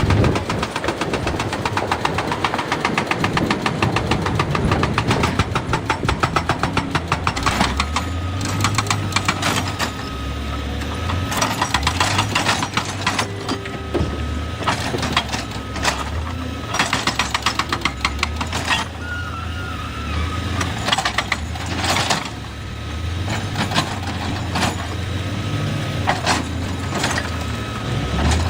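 Excavator diesel engine running under load, with a fast, dense clatter for the first several seconds and then irregular loud knocks and clanks of rock against the steel bucket and machine.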